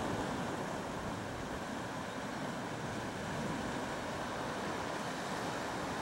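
Sea waves breaking and washing over rocks, a steady rushing noise.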